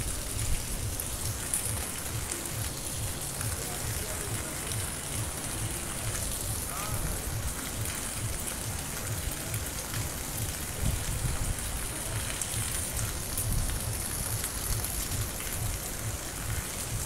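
Steady rain falling on a street and rooftops. Underneath it runs a quick low thudding, about four beats a second.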